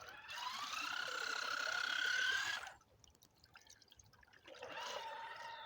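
RC car motor whining as it is throttled up, its pitch slowly rising, with wheels churning and spraying in muddy water. It cuts off after about two and a half seconds, and a shorter burst of throttle starts near the end.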